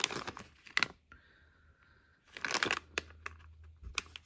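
Plastic snack bag crinkling as it is handled, in two bursts about two seconds apart, with a few light rustles and taps near the end.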